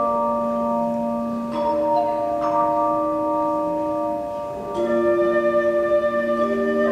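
Tone chimes playing a slow melody: struck notes that ring on as long, steady bell-like tones, with new notes struck about one and a half and two and a half seconds in and a fuller chord coming in near five seconds.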